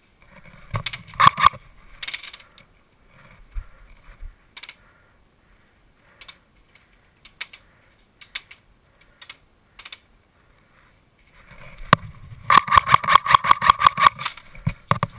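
Airsoft electric gun firing on full auto: a short burst about a second in and a longer burst of rapid, even clicks lasting about two seconds near the end, with scattered single clicks and knocks between.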